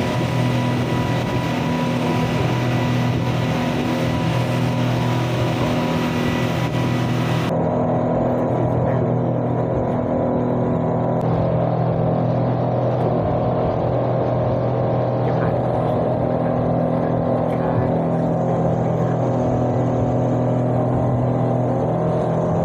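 Speedboat engine running steadily at cruising speed, a constant drone. A high hiss over it cuts off abruptly about seven seconds in.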